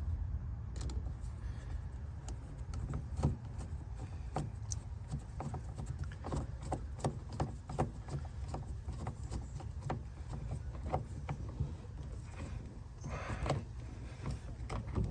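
Small irregular clicks and taps of a screw being driven to refit a car's window crank handle, over a steady low rumble, with a short rustle near the end.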